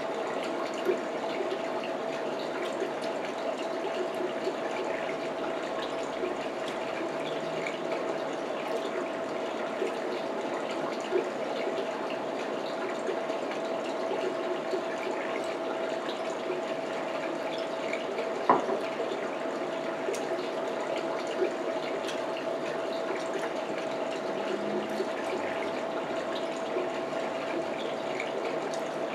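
Steady hum and hiss with one constant tone, like a running fan or appliance, broken by a few short sharp clicks, the loudest about two-thirds of the way through.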